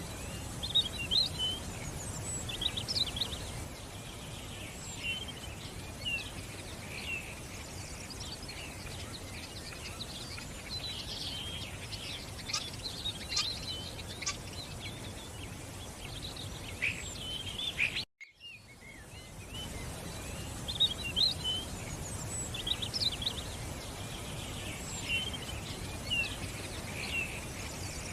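Several birds chirping and singing over a steady background hiss. About two-thirds of the way through, the sound cuts out briefly and then the same birdsong ambience fades back in.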